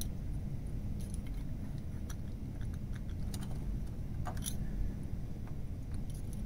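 Scattered light clicks and small rattles of a Type 2 Y-cable's connector parts being handled as an interchangeable plug is fitted back onto the cable end, with one sharper click about four and a half seconds in.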